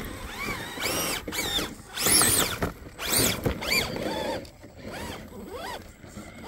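Electric drive motor and geartrain of a scale RC rock crawler whining in several short throttle bursts, each rising and then falling in pitch, the loudest about two seconds in.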